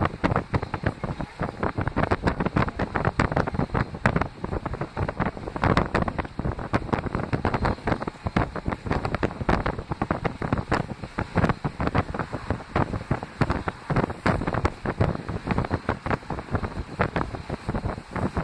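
Wind buffeting the microphone in rapid, choppy gusts, over the running noise of a moving passenger train.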